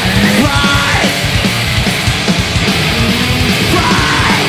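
Loud heavy rock music with a fast, driving beat.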